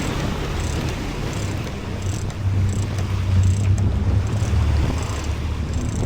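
Small boat underway at sea: a steady low rumble of engine, hull and wind noise, with short faint high-pitched ticks every half second or so.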